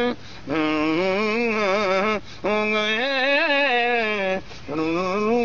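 A man singing a Punjabi folk song solo, holding long, wavering, ornamented notes without words in three phrases with short breath breaks between them.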